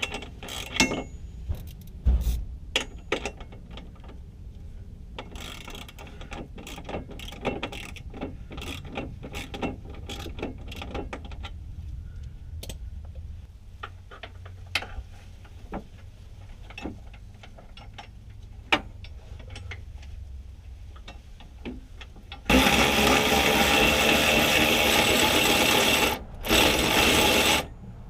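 Scattered light clicks and clanks of hand tools working on suspension hardware, then a power tool runs loud and steady for about four seconds, stops briefly, and runs again for about a second near the end.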